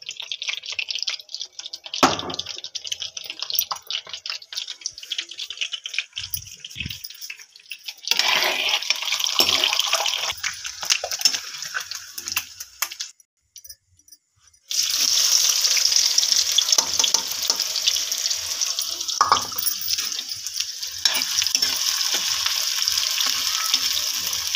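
Food frying in hot oil in a wok: a dense crackling sizzle with the ladle clinking and scraping against the pan. The sizzle cuts out briefly a little past halfway, then comes back louder as chopped onion, garlic and ginger fry.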